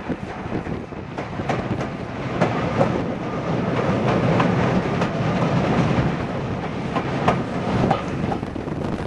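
Train running at speed, a steady rumble with irregular sharp clicks of the wheels over the rail joints.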